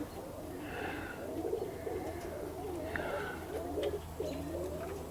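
Domestic pigeons cooing, several calls overlapping without a break, with a couple of brief higher bird calls about one and three seconds in.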